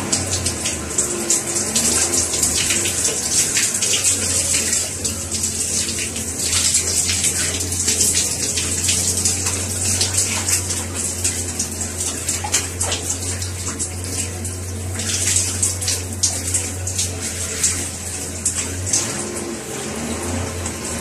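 Overhead shower running: water spraying from the shower head in a steady hiss and splashing irregularly over a person's head and onto the floor. A low steady hum underneath stops near the end.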